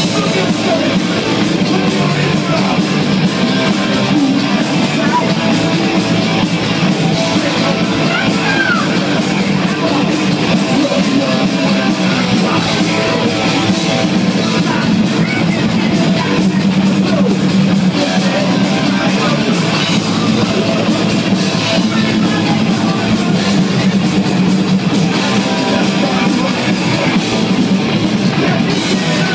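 Heavy metal band playing live, loud and without a break: electric guitars, drums and singing.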